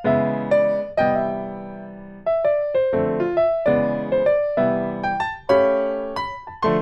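Background music: a gentle electric-piano melody, notes struck one after another and each fading away.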